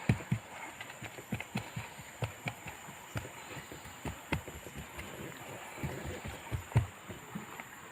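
Irregular dull knocks and taps, roughly two or three a second, with a few sharper clicks among them.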